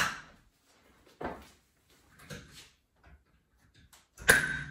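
Short plastic clicks and knocks of click-fit blind fittings being pressed into a uPVC door frame: four separate knocks about a second apart, the loudest near the end.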